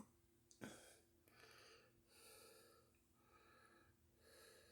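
Near silence: faint breathing close to the microphone, with one soft click just over half a second in.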